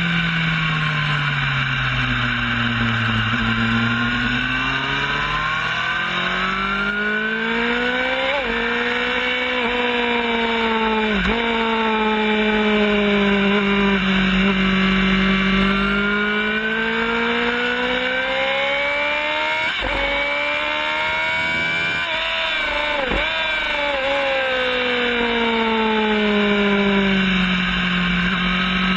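Race motorcycle's engine heard from onboard at speed. Its pitch falls as the bike slows for corners and climbs again as it accelerates out, with about four brief breaks in the note at gear changes, over steady wind rush.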